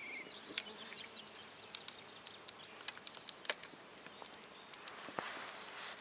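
Flies buzzing faintly close by, with a few scattered sharp clicks.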